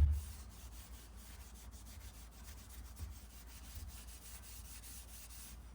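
A rag rubbing boiled linseed oil into a wooden hammer handle: a faint, steady scratchy rubbing. A single knock is heard right at the start.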